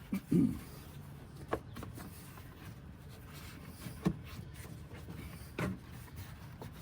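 A few scattered knocks and clunks as parts under a pickup's hood are worked back into place by hand. The loudest comes just after the start, followed by three fainter ones spread out.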